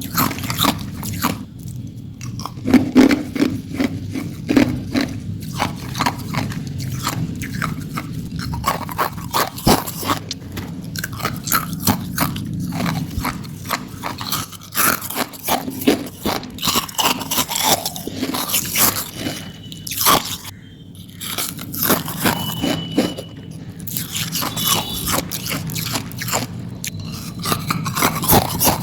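Hard ice being bitten and crunched between the teeth close to the microphone: a dense, irregular run of sharp cracking crunches with chewing in between.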